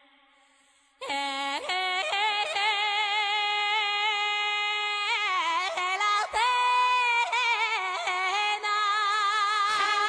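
A woman singing solo and unaccompanied, with strong vibrato and quick ornamental turns between long held notes. She comes in about a second in, after a moment of near silence.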